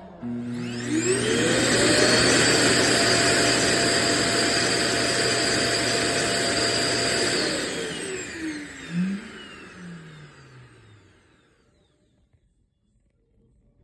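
Vacuum motor of an iRobot Roomba j7+ spinning up with a rising whine, running steadily for about six seconds, then winding down in falling pitch until it stops.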